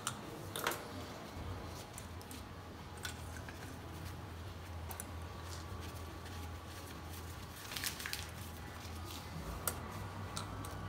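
A few faint clicks and taps as a compression gauge and its hose are handled and fitted into the spark plug well of a bare engine, over a steady low hum.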